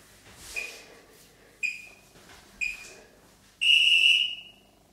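Electronic interval-timer beeps counting down: three short beeps a second apart, then one longer, louder and slightly higher beep, the usual signal that a timed interval starts or ends.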